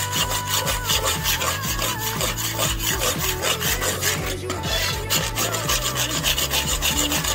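Background music with a fast, scratchy, evenly spaced beat over steady bass notes that change in steps.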